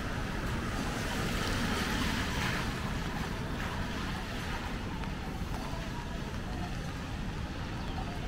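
Street ambience on a rain-wet road: a steady rush of traffic noise with car tyres hissing on the wet tarmac, swelling briefly about two seconds in.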